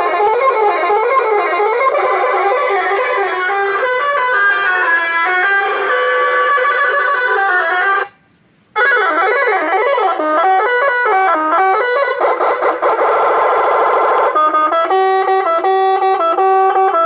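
Electronic telolet bus-horn module playing a synthesized melody tune, with wavering notes at first and then stepped ones. It stops abruptly about eight seconds in, and a second tune starts and plays until it cuts off.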